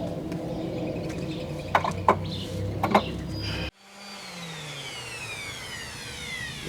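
A small electric power tool's motor runs steadily, with a few light knocks. After an abrupt cut about halfway in, the motor's pitch falls steadily as it winds down after being switched off.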